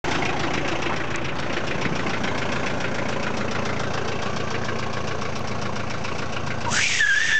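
Off-road 4x4 engine running steadily with an even, fast throb. Near the end a person lets out a loud, wavering yell that rises in pitch.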